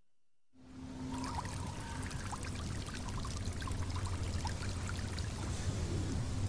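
Night ambience fading in about half a second in: a steady trickling, water-like wash with a low hum beneath and scattered small clicks and chirps.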